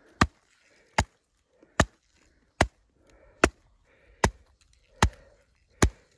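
Gloved hand tapping on an avalanche shovel blade laid on top of an isolated snow column. Eight sharp, evenly spaced taps come about every 0.8 seconds: the loading taps of a compression test in a snow pit, watching for a weak layer to fracture.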